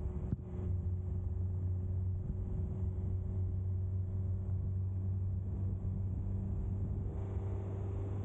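Ford Transit 4x4 van driving at a steady speed: a steady low engine and road drone.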